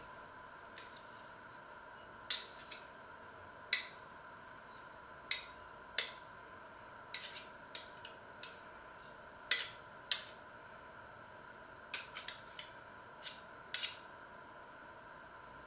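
Metal serving spoons clinking and scraping against a stainless steel saucepan and a ceramic plate as food is scooped out and served: irregular sharp clinks, some in quick pairs, over a faint steady hum.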